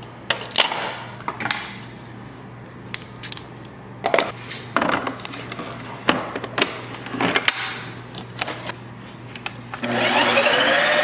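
Hard plastic clicks and knocks as a frozen pint is set into a Ninja Creami's outer bowl, the lid is twisted on and the bowl is locked into the machine. About ten seconds in, the Ninja Creami's motor starts on the ice cream program, a loud whirr with a rising whine as the blade spins up.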